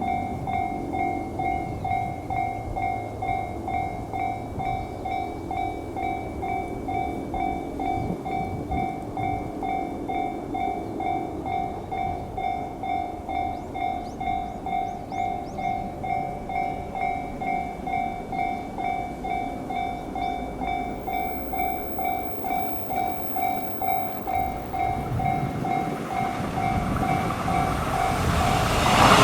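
Japanese level-crossing warning bell ringing steadily at about two strikes a second. Near the end the noise of an approaching 189-series electric train rises quickly and becomes the loudest sound.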